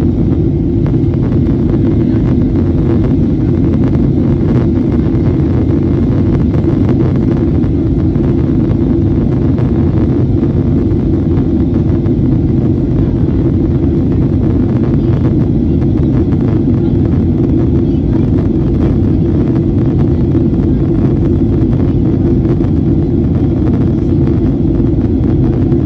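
Steady cabin noise inside a Boeing 737-800 in flight on descent: an even, loud rumble from its CFM56 turbofan engines and the airflow over the fuselage, heaviest in the low range, unchanging throughout.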